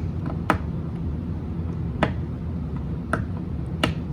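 A LEGO set's cardboard box being worked open by hand: four sharp clicks and snaps of the cardboard, spread over a few seconds, over a steady low hum.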